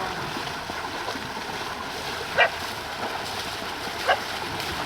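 A dog barks twice, two short single barks about a second and a half apart, over a steady rush of running water.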